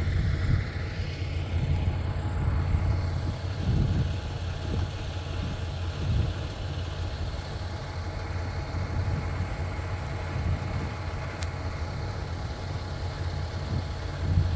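Steady low engine drone and road noise heard from inside a vehicle's cab while it drives along a snow-covered highway.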